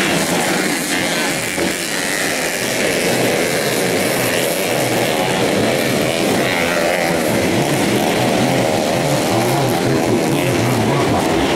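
Several underbone racing motorcycle engines, two-stroke and four-stroke, revving up and down as the bikes race round a dirt grasstrack, their pitch rising and falling continuously.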